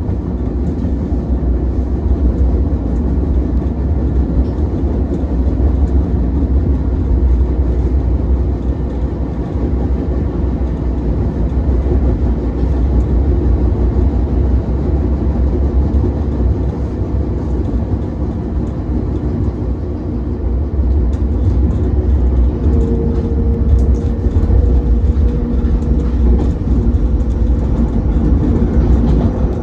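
Ichibata Electric Railway 7000-series electric railcar running along the line, heard from inside the car: a steady low rumble of wheels on rail. A faint steady tone joins about two-thirds of the way in.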